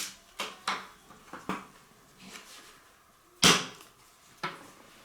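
Kitchen items being handled: a few light clicks and taps in the first second and a half, then one loud knock about three and a half seconds in and a lighter knock a second later.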